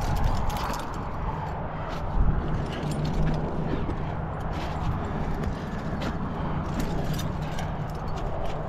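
Climbing gear on a harness clinking irregularly and hands and shoes scuffing on granite as a climber moves up a crack, over a steady low rumble.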